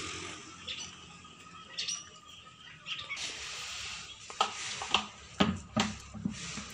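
A plastic feed bucket knocking and scraping on a concrete cattle trough as it is emptied and set down: about five sharp knocks in the second half, over a low hiss.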